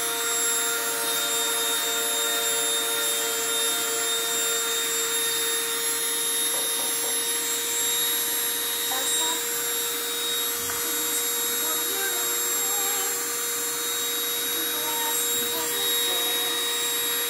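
Small handheld rotary tool fitted with a diamond drill bit, running steadily with an unbroken motor whine while drilling sea glass.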